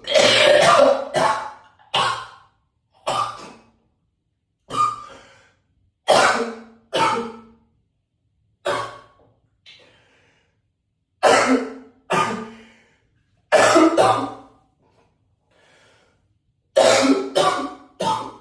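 A man coughing over and over in an echoey bathroom: single coughs and short runs of two or three, about fifteen in all, with brief pauses between them.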